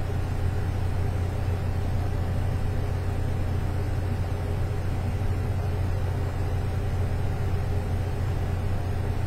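A steady low hum, level and unchanging, with no distinct events over it.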